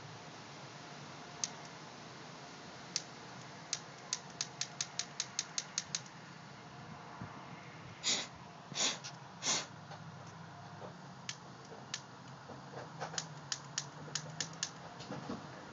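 Sharp mechanical clicks: a couple of single clicks, then a quick, even run of about ten in two seconds. Three short, loud rasping bursts follow, then more scattered clicks.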